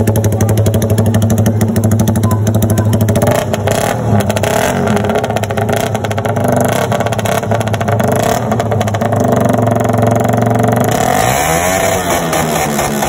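Underbone motorcycle with an open aftermarket racing exhaust held at high revs, loud and steady for the first few seconds, then uneven, with the pitch swinging up and down near the end as the throttle is blipped.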